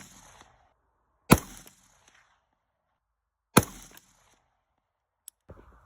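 AR-15 rifle firing two shots about two seconds apart, each a sharp crack with a short ringing tail.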